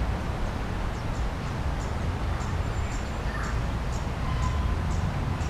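Wind rumbling on the microphone, with a run of short high ticks about twice a second over it.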